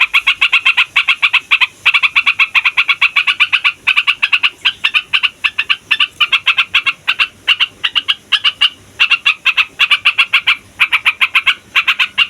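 Yellow-vented bulbul (trucukan) singing a long rolling chatter: rapid repeated notes, about eight a second, in runs of one to two seconds with brief breaks.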